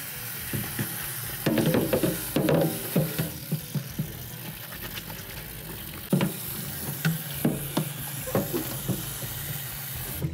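Tap water running into a stainless steel sink and over an Arai motorcycle helmet as it is rinsed out, with irregular knocks and bumps as the helmet is turned and handled against the sink.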